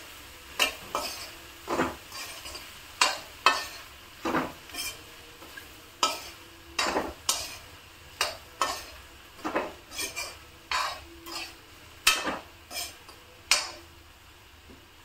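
A spatula stirring okra and onions in a metal kadhai: irregular knocks and scrapes of the spatula against the pan, about one or two a second, which stop near the end.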